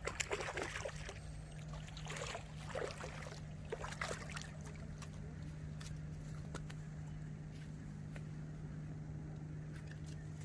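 A steady low hum under clusters of noisy bursts in the first four seconds, then a few light clicks.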